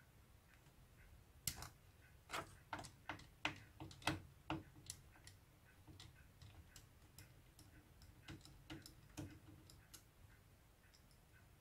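Faint, irregular metallic clicks and taps from a screwdriver working the screws of a VCR's loading-mechanism block. There is a quick run of louder clicks in the first few seconds, then sparser, softer ones.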